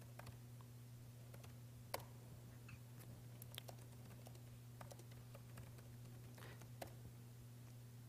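Faint, irregular keystrokes on a laptop keyboard as commands are typed, with a sharper key click about two seconds in. A steady low electrical hum runs underneath.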